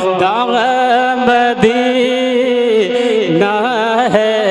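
A man singing a naat into a microphone, drawing out a long, wavering melismatic phrase over a steady low drone.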